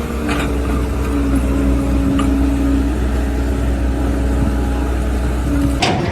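An engine running steadily, a deep rumble with a steady hum over it, cutting off suddenly near the end.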